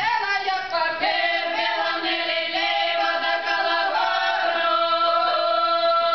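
A group of women singing a Ukrainian traditional folk song in the authentic village style, holding long notes; a final chord is held from about two-thirds of the way in.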